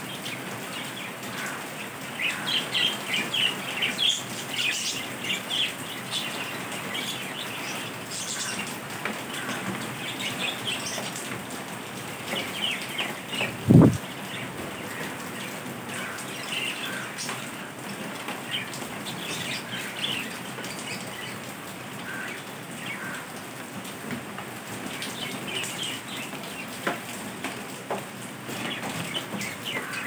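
A flock of budgerigars chirping and chattering in short scattered bursts, over a steady hiss. One dull thump sounds about halfway through.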